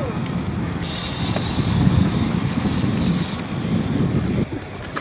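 Fishing boat under way: a steady low rumble of engine, wind and water rushing past the hull. A thin high whine runs from about a second in until past three seconds.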